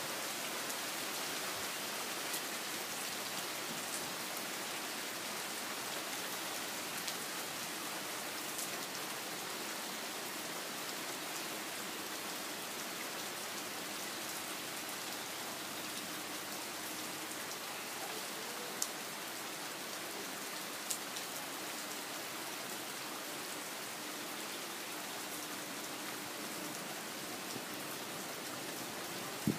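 Steady rain falling, with a few sharp drip ticks here and there.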